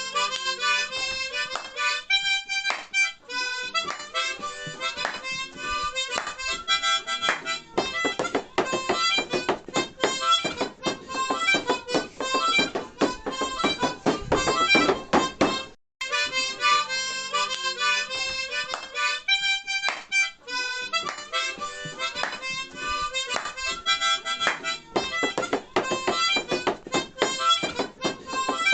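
Instrumental jingle music used as a ringtone: a reedy melody with percussion. It cuts out for an instant about 16 seconds in and then starts over from the top as a loop.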